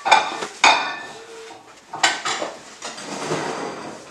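Hard objects clinking and clattering: several sharp clinks, each ringing briefly, with lighter rattling in between.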